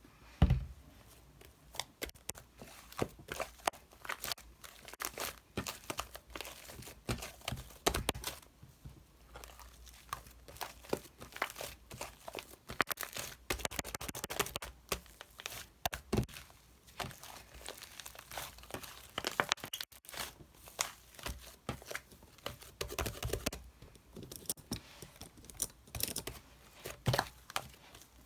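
Irregular crinkling and rustling with many light clicks and knocks, like objects or packaging being handled.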